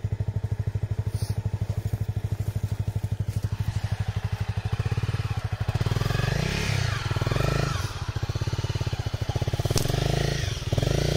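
Honda CRF250L single-cylinder dirt bike engine idling with an even pulse, then revved up and down several times from about halfway through as the bike is worked up a muddy rut.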